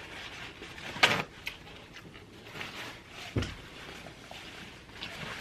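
Eating and handling noises while the sub sandwich is eaten: a short crackly noise about a second in, a faint click, and a low thump a couple of seconds later.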